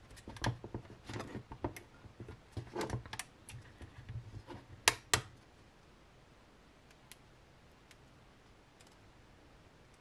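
Small plastic clicks and rattles from the lid of a Sunlu FC01 filament connector and the Teflon tube being handled, including the lid closing the tube onto its built-in cutter blade, with one sharper click about five seconds in. After that, only a few faint ticks as the tube is worked off the filament by hand.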